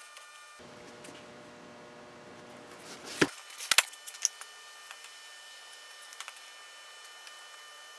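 Hands working around a band saw's geared drive while greasing it: a few sharp knocks about three to four seconds in, over a faint steady hum.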